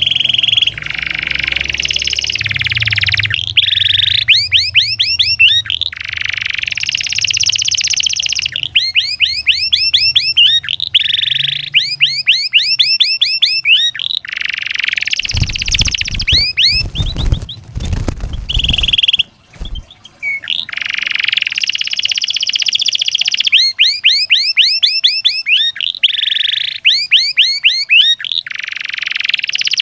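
Domestic canary singing a long, loud song of fast rolling trills, bursts of rapidly repeated sweeping chirps and a few held whistled notes, with short pauses between phrases. A low rumble breaks in about halfway through.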